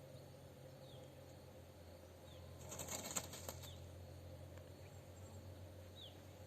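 A bird flapping its wings in a brief flurry about three seconds in, with a few faint, short, high chirps.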